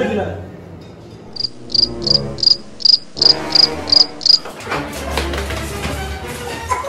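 Cricket chirps: a run of about nine short, high chirps, roughly three a second, used as the comedy 'awkward silence' gag. In the last two seconds they give way to a scuffle of knocks and rustling.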